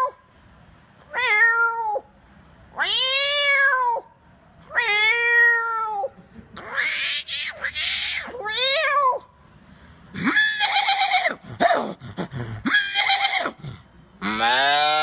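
A man imitating a cat with his voice: a series of drawn-out meows, one after another, each rising and falling in pitch. Near the end a longer, lower call begins.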